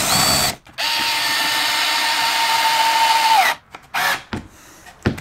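Cordless drill running into a wooden board in two runs: a short one at the start, then a steady run of nearly three seconds whose whine drops as the motor stops. A brief noise and a few faint clicks follow near the end.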